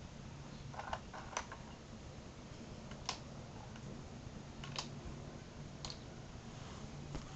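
Lego vending machine worked by hand, its plastic bricks giving a handful of short, sharp clicks spread out over several seconds.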